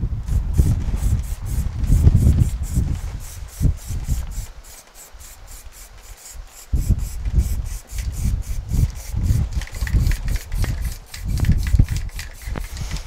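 Aerosol can of primer spraying in short hissing bursts onto a car's wheel arch, under a heavier low rubbing rumble that swells and fades.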